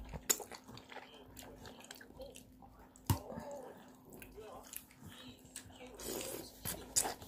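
Child eating noodles with a fork, slurping and chewing, with a few sharp clicks of the fork against the plastic bowl: one early, one about three seconds in, and a couple near the end.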